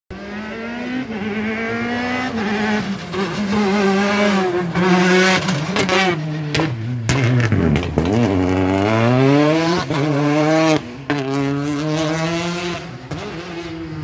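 Competition car's engine revving hard through the gears, its pitch climbing in steps, with a sharp pop about seven seconds in. The pitch drops low about eight seconds in, then climbs again as it accelerates away.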